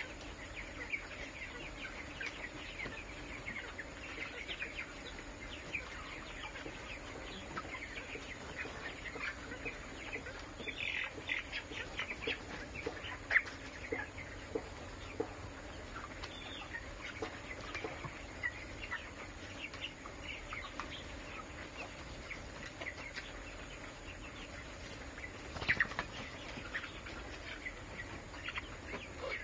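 A flock of broiler chickens calling, a steady scatter of short high peeps and clucks, with louder flurries a third of the way in and again near the end.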